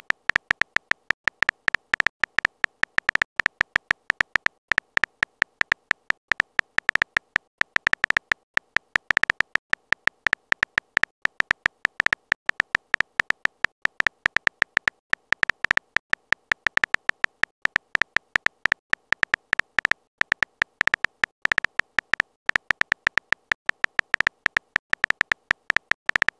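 Phone keyboard key-press clicks from a texting-story app: a fast, irregular stream of short, sharp, high clicks, one for each letter typed into a chat message.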